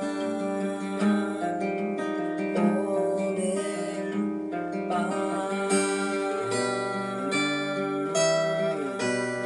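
Acoustic guitar being strummed and picked, playing a song.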